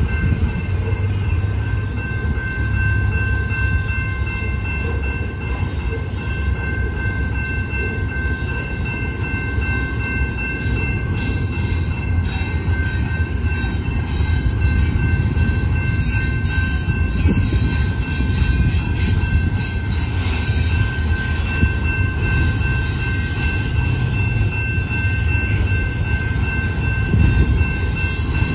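Canadian Pacific double-stack container train rolling past, its steel wheels rumbling and clattering on the rails, with steady high-pitched ringing tones held over the rumble.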